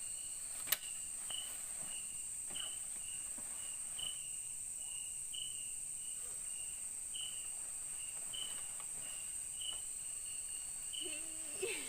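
Night-time rainforest insect chorus: a steady high-pitched insect drone with a short chirp repeating roughly every second. A single sharp click comes about a second in.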